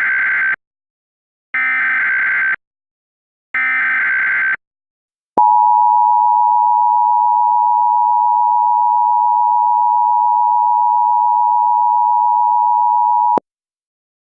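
Emergency Alert System SAME header: three one-second bursts of warbling data tones, then the two-tone EAS attention signal held steady for about eight seconds and cut off sharply. The header encodes a 911 Telephone Outage Emergency alert.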